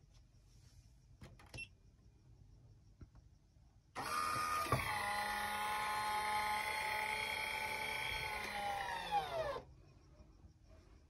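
Small electric motor of a roof vent fan running with a steady whine. It starts abruptly, runs for about five seconds, then drops in pitch just before it cuts off.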